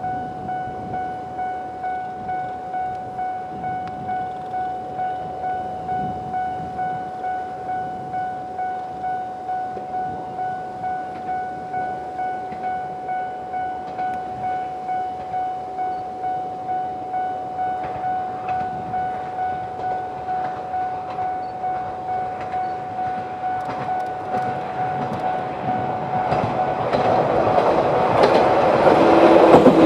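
Japanese level-crossing electronic warning bell ringing a steady single high tone at about two strokes a second; one of its two sound units is missing its low tone. From about 24 s a Toyama Chiho Railway 10030-series electric train approaches with wheel clatter and rumble, growing loud near the end and drowning the bell.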